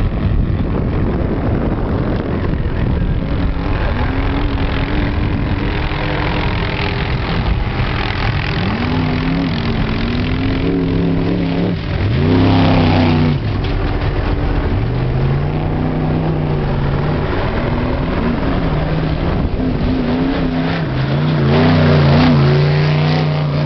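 Off-road Trophy Trucks racing past at speed, their engines revving and the pitch rising and falling as they go by. The two loudest passes come about twelve seconds in and again near the end.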